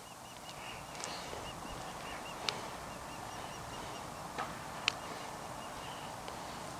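Faint open-air hiss with small repeated bird chirps, and three sharp clicks, the louder two about two and a half and five seconds in, from switches on the handheld radio transmitter being set.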